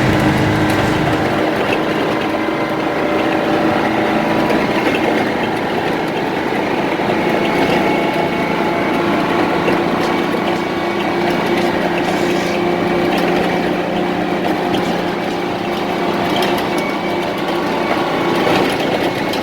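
International truck's two-stroke diesel engine running steadily under way, its pitch holding nearly level throughout.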